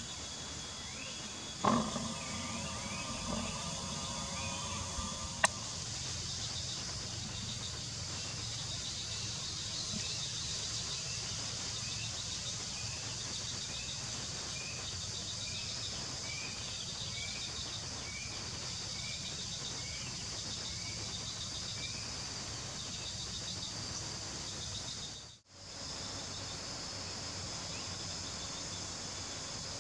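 Steady insect chirring in grassland. Through the middle a short chirp repeats about every two-thirds of a second for several seconds. Near the start a sudden knock is followed by a few seconds of steady hum that ends in a click, and near the end the sound cuts out briefly.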